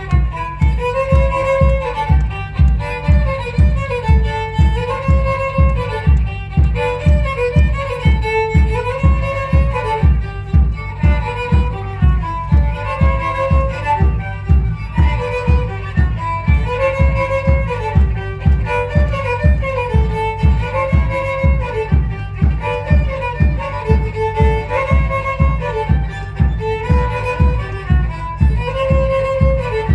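Violin-led music for a traditional folk dance: a short tune repeated over and over above a steady, even beat.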